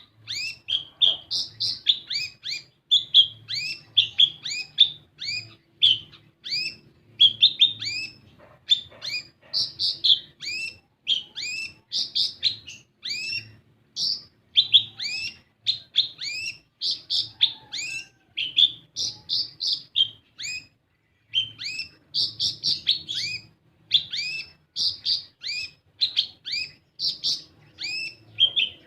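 Kolibri ninja sunbird singing a fast, unbroken run of short, sharp high chirps, several a second, with a brief pause about two-thirds of the way through. This is a lure song used to get a caged sunbird to start singing.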